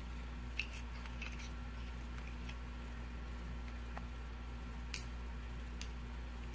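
Faint small metal clicks of steel tweezers probing inside a pin-tumbler lock's cylinder housing to pull out the top pins and springs, with a sharper tick about five seconds in, over a steady low hum.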